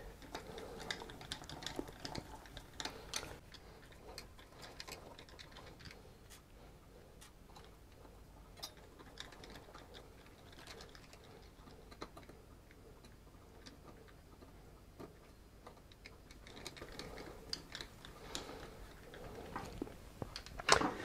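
Small hex screws being driven into a copper cold plate with a hand screwdriver, sped up: faint, scattered clicks and ticks of metal on metal.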